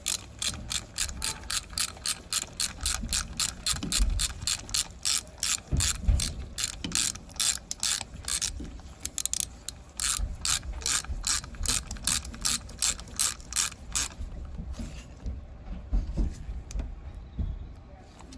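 Hand ratchet wrench clicking in quick, even strokes, about three or four clicks a second, as bolts on an ATV engine's camshaft sprocket are turned. The clicking stops about 14 seconds in, leaving a few single clicks and knocks.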